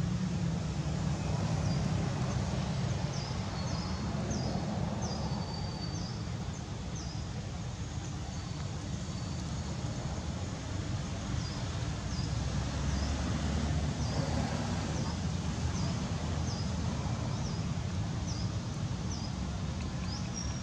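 Outdoor ambience: a steady low rumble with two runs of short, high, falling chirps, about two a second, in the first third and again in the second half.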